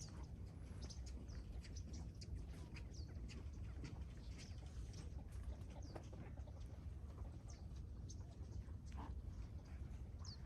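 Birds chirping, with short high calls that slide downward, scattered every second or so, over a steady low rumble.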